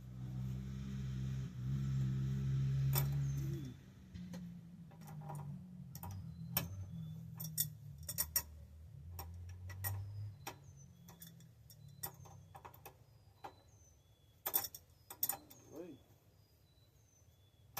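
Metal tools and bicycle bearing parts clicking, tapping and clinking while a bearing cup is worked loose, with a crunchy sound from the bearing. The owner hopes this does not mean damage. A steady low hum fills the first few seconds, then stops.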